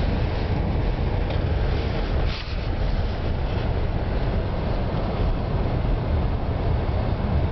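Steady rumble of a car being driven slowly through snow, with a brief patch of light clicks about two and a half seconds in.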